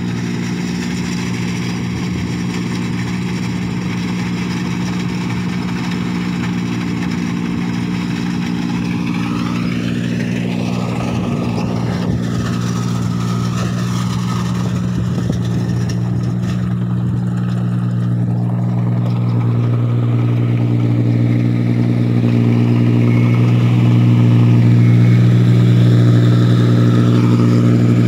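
Rice combine harvester's engine running with a steady hum, growing somewhat louder towards the end.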